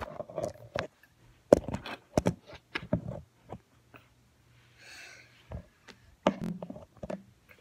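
Irregular knocks, bumps and rustles of close handling: the recording phone being brushed and jostled while a baby doll in fleece pajamas is moved about on a towel.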